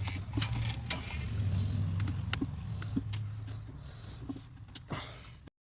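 Scattered clicks and knocks of tools and parts being handled while fitting parts back onto a car engine's intake, over a steady low hum. The sound cuts off abruptly near the end.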